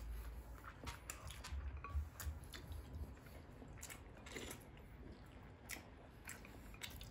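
Mealtime sounds: chewing, with scattered light clicks of chopsticks against ceramic bowls and plates.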